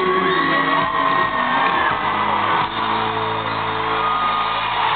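Live country band holding a sustained chord at the end of a song while the crowd cheers and whoops.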